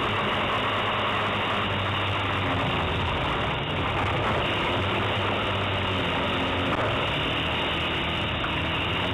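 Autocross race car's engine heard from inside its own cabin, running hard under load. The engine note wavers up and down a little over a steady, dense noise.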